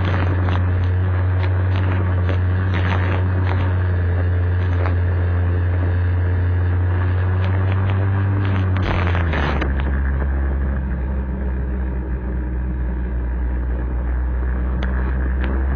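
Vespa scooter engine running steadily while riding, with wind rushing over the microphone. About nine seconds in there is a short burst of noise and the engine note drops to a lower, steady pitch.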